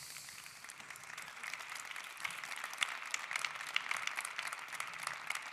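Audience applauding, a dense patter of many hands clapping that swells over the first few seconds.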